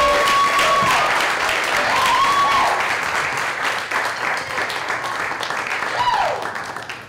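Audience applauding and cheering, with a few long whoops, the last one falling in pitch. The clapping thins out near the end.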